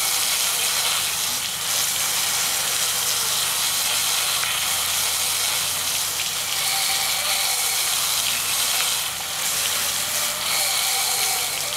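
Water jets spraying and splashing onto a conformal-coated 120mm computer fan during an IP55 water-jet test: a steady hiss of spray that holds at an even level throughout.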